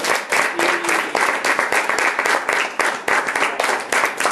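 Applause from a small audience: many hands clapping at once in a dense, steady patter.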